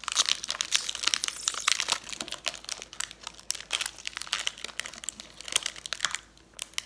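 Shiny foil candy wrapper crinkling as it is handled and peeled open by hand, a dense run of crackles that thins out near the end.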